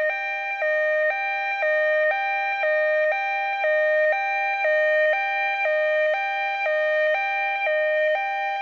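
Electronic hi-lo two-tone alarm sound effect, switching between a lower and a higher pitch about twice a second, with a slight click at each change.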